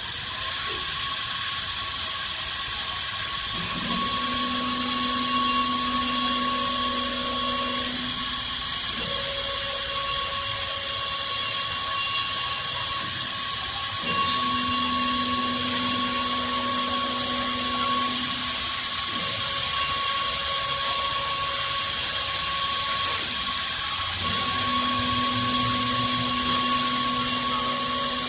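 CNC wood lathe running and working a wooden blank: a steady high motor whine over a hiss of wood being machined. A lower tone comes in about four seconds in and returns twice more, each time for a few seconds.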